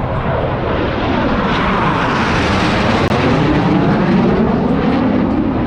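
Blue Angels F/A-18 jet passing low overhead, its noise swelling to a peak in the middle and easing off toward the end, with sweeping changes in tone as it goes by.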